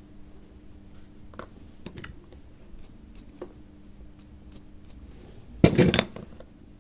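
Small clicks and taps of tools and parts being handled at an electronics workbench during hard-drive circuit-board rework, with one loud rattling scrape about half a second long near the end.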